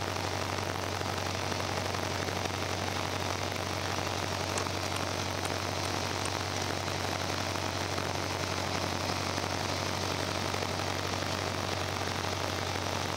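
Piper Cherokee Arrow's piston engine running steadily while the plane taxis, heard from inside the cabin: a constant low hum under an even hiss.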